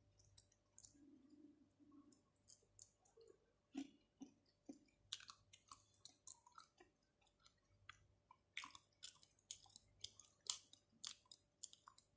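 Close-miked chewing of soft raw seafood: wet, sticky mouth clicks and smacks at an irregular pace, coming thicker in the second half.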